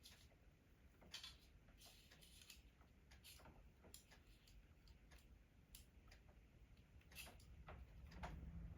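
Near silence broken by faint, irregular light clicks and ticks: small metal parts, wire and a steel hose clamp, being handled.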